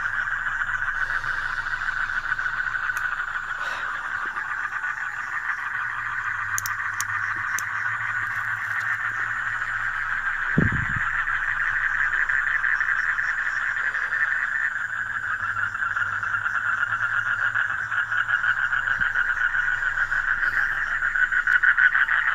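Dense, steady chorus of calling frogs, with one dull thump about halfway through.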